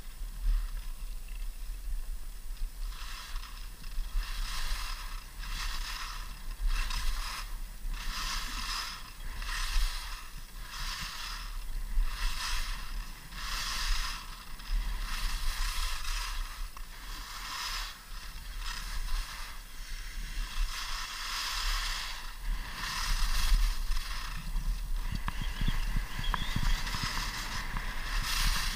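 Skis carving turns on packed snow: a scraping hiss that swells and fades with each turn, a bit more than once a second, over a steady low rumble.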